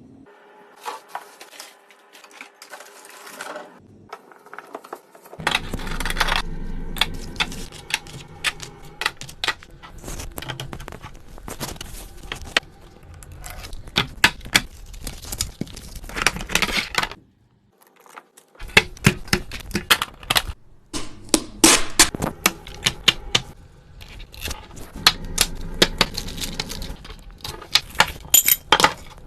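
Plastic storage containers and food packages being handled, opened and set down: a long run of clicks, taps and rustles, with a brief lull about two-thirds through.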